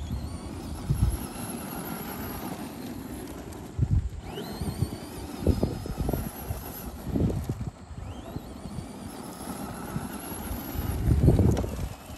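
Traxxas Bigfoot No. 1 RC monster truck's electric motor whining up in pitch three times as it accelerates, over the gritty crunch of its big tyres on loose gravel. Rough low rumbles come and go, loudest near the end as it spins and throws up dust.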